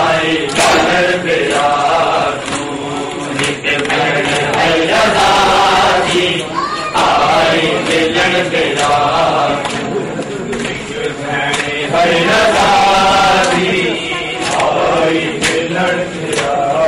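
A group of men chanting a mourning lament together, with the sharp slaps of bare-handed chest-beating (matam) striking along with the chant.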